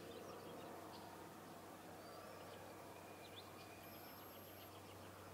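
Near silence: a steady low hum and hiss, with faint small-bird chirps and short whistles a few times in the background.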